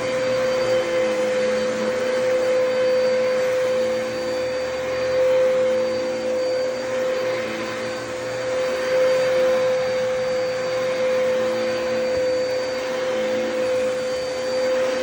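Dyson DC33 upright bagless vacuum cleaner running steadily: a constant motor whine over the rush of air, swelling slightly in loudness now and then.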